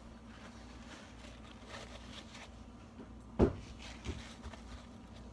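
A single sharp knock a little past halfway, like a hard object or door hitting wood, followed by a lighter knock, over a faint steady hum.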